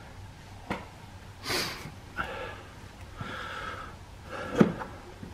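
A man breathing hard with quiet strained grunts while working by hand, over a few light clicks of metal parts. The sharpest click comes about four and a half seconds in.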